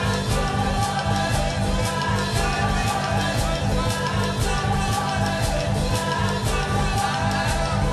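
Live band music: a steady drum beat with cymbal hits over sustained electronic keyboard tones, with sung vocals.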